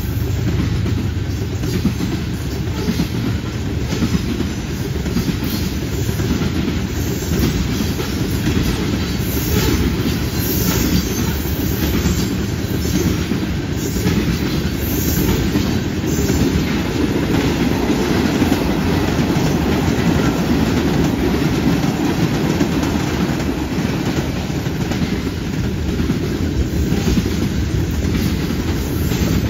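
Freight train tank cars rolling past close by: a steady rumble of steel wheels on the rails, with repeated clicks as the wheels pass.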